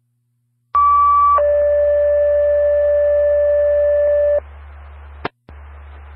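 Two-tone sequential fire-alerting page over a scanner's radio channel: a short higher tone, then a longer lower tone held about three seconds, paging Station 11 out to a call. After it the channel stays open with a steady hiss and low hum, and there is one brief click with a dropout near the end.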